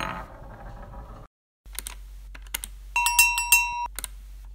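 Metallic coins clicking and clinking in a coin pusher machine, with a cluster of ringing clinks about three seconds in, over a low steady machine hum.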